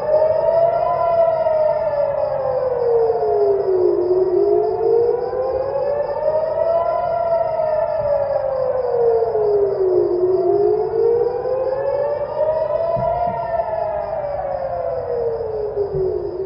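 Civil-defence warning siren wailing, its pitch rising and falling slowly in a cycle of about six seconds. It is the rocket-attack alert.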